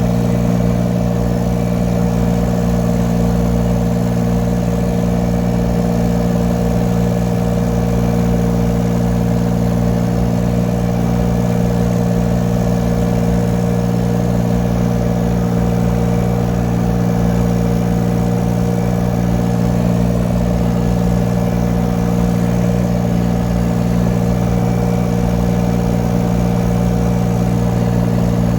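2-ton mini excavator's engine running at a steady, even speed, with no change in pitch or load.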